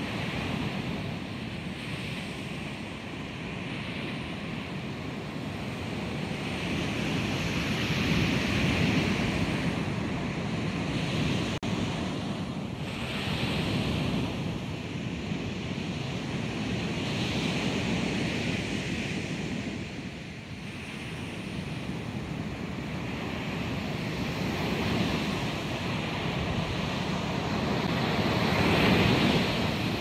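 Sampled ocean waves crashing and washing in, several overlapping, with surges that swell and fade every few seconds. The loudest surge comes near the end.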